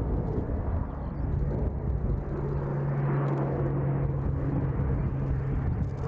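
Turboprop engines of a military transport plane overhead, a steady low hum with outdoor noise underneath, growing stronger about two seconds in.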